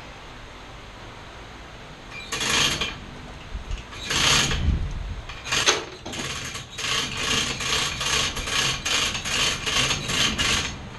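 Hand-tool work on metal: three separate rasping strokes, then a quick regular run of about a dozen short strokes, two to three a second.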